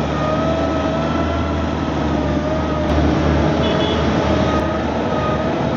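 Snowcat piste groomer running while grooming: a steady low engine rumble with a high, slightly wavering whine over it, and an even rushing hiss.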